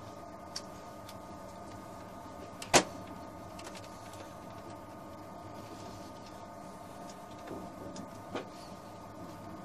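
Inside a TGV Atlantique passenger car: the steady electric hum of the train's traction equipment, several tones held together. One loud sharp knock comes about three seconds in, and a few lighter clicks come later.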